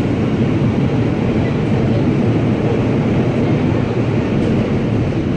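Steady, loud rumble of an R160A subway train's wheels and running gear, heard from inside the car as it runs through the tunnel. The rumble eases slightly near the end as the train slows for the next station.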